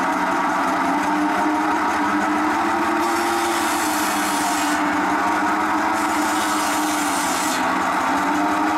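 Flat-belt-driven Acrow circular saw bench running with a steady hum from its large spinning blade, which cuts through small logs twice, each cut adding a rasping hiss for under two seconds.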